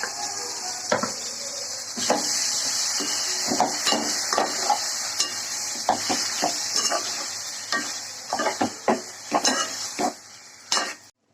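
Chicken curry sizzling in a pan while it is stirred, the spoon scraping and clicking against the pan many times. The sizzle fades near the end and all sound cuts off abruptly.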